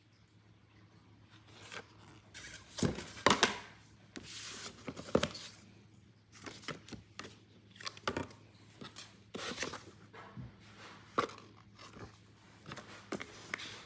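Irregular rustling, scraping and tapping of a cardboard box and its paper packaging being handled, with a few sharper knocks.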